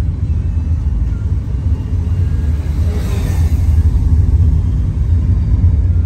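Road noise inside a moving car's cabin: a steady low rumble from engine and tyres on wet asphalt. A brief swell of hiss comes about three seconds in.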